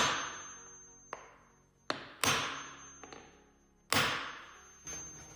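Hammer striking a steel nail setter to sink 1-inch smooth-shank finishing nails into wooden trim. Three sharp metallic strikes, at the start, about two seconds in and about four seconds in, each ringing as it fades, with lighter taps between them.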